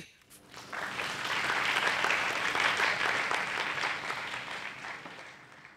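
Audience applauding: it rises about a second in, is loudest in the middle and dies away toward the end.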